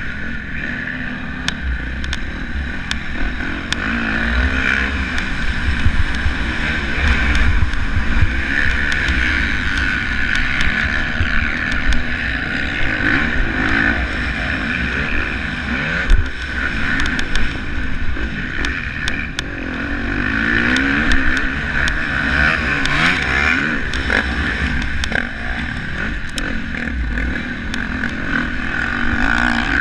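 Motocross bike engine running hard, its pitch rising and falling again and again as the rider works the throttle, heard from a camera mounted on the bike, with a low wind rumble on the microphone.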